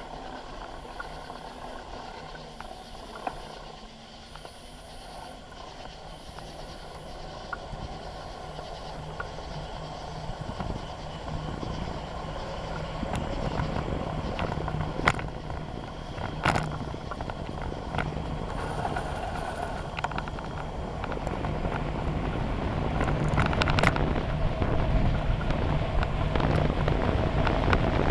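Bicycle in motion heard from a handlebar-mounted camera: low rolling noise that grows louder from about a third of the way in, with several sharp clicks and rattles. In the first several seconds, faint high insect chirps repeat about every two seconds.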